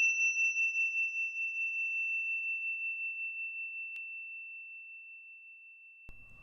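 Ringing of a struck high-pitched bell: one clear tone fading slowly away with a slight pulsing waver, its brighter overtones dying out first.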